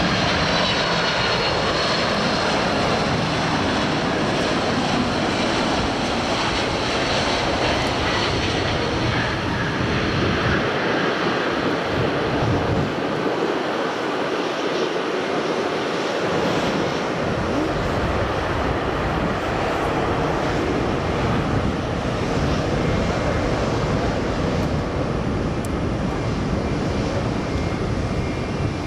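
Boeing 767-300ER jet airliner's engines running as it lands and rolls out along the runway: a steady broad roar, with a faint high whine near the start.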